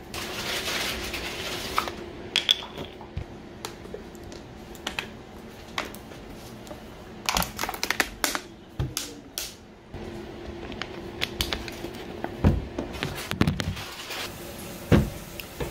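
Irregular clinks and knocks of dishes being washed and handled in the background, with a short hiss at the start and a few heavier bumps near the end.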